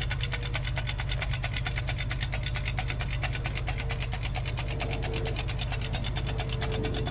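Car engine idling steadily, with a rapid, even ticking over a constant low hum.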